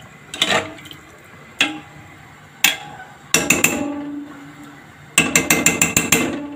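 A metal spoon stirring soaked wild rice in water in a pot, with watery sloshing and the spoon clinking against the pot: single clinks about once a second, then two quick runs of rapid clinks, one about three seconds in and a longer one near the end.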